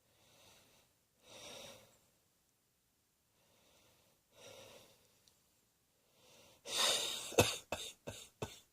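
A person takes a few faint breaths, then breaks into a coughing fit about two-thirds of the way in: one longer rough cough followed by several short, sharp coughs in quick succession.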